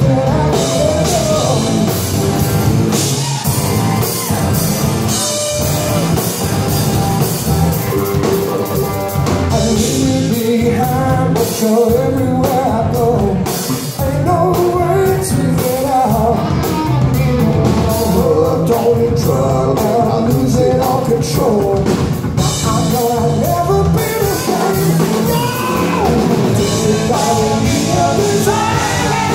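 Live rock band playing loud and without pause: electric bass, electric guitar and drum kit, with a lead voice singing over them.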